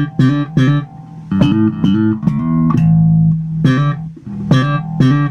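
Electric bass played slap style through a compressor pedal in passive mode, a repeating pattern of sharp slapped and popped notes. About a second in it breaks into a run of held notes, then the slapped pattern returns near the end.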